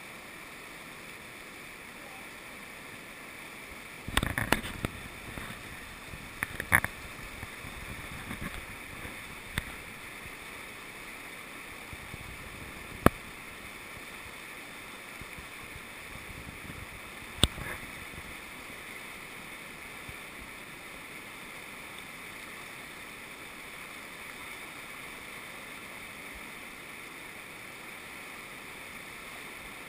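Steady rush of a fast, rocky river's rapids. A handful of sharp knocks or clicks cut through it: a cluster about four to seven seconds in, a single loud one about thirteen seconds in and another near seventeen seconds.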